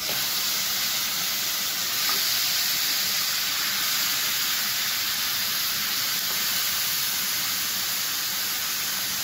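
Raw mutton pieces sizzling in hot oil with fried onion and ginger-garlic paste in the base of a pressure cooker: a steady hiss that jumps up as the meat goes in and holds evenly.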